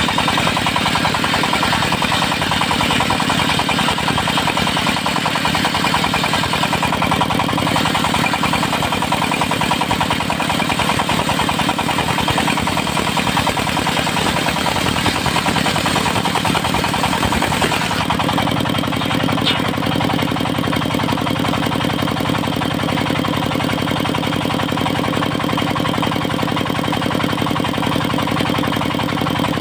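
Engine-driven portable circular sawmill running steadily while its blade rips teak, a harsh, bright cutting noise over the engine. About two-thirds of the way through, the harsh noise drops away and the engine runs on with a smoother, steady note.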